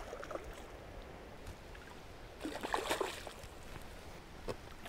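A hooked chub splashing and thrashing at the water's surface as it is brought to the landing net, in a short cluster of splashes a little past halfway, with a single knock near the end. Behind it is a faint steady wash of water and wind.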